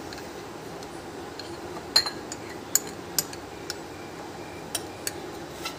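Metal spoon stirring a thin flour batter in a glass bowl, clinking against the glass now and then; the loudest clink comes about two seconds in.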